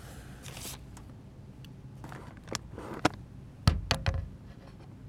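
Plastic-wrapped paper towel packs rustling and bumping against the camera as it is pushed among them, with a few sharp knocks, the loudest cluster a little under four seconds in.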